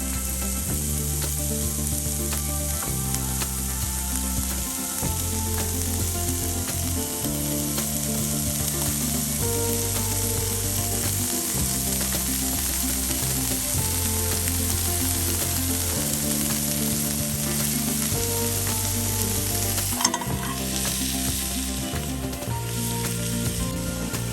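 Food sizzling as it fries in a pan, a steady hiss throughout, with a sharp click about twenty seconds in. Background music with a low, stepping bass line plays under it.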